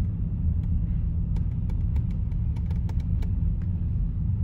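Steady low road rumble of a moving vehicle heard from inside its cab, engine and tyres droning evenly, with a scattering of light ticks about halfway through.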